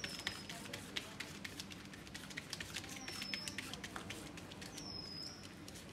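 Fingers patting and pressing soft rice-flour dough flat on a banana leaf: a quick, irregular run of light taps and clicks against the leaf. A few short high falling chirps sound in the background.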